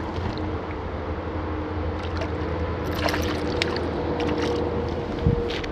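Steady wind and water noise around a small boat, with a faint steady hum and a few short sharp splashes or knocks, as a perch is reeled in and landed.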